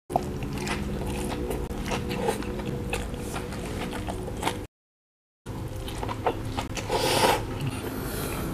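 Close-miked chewing of a beef and cheese burger: wet mouth smacks and small clicks, with a louder bite about seven seconds in. The sound drops to dead silence for under a second near the middle.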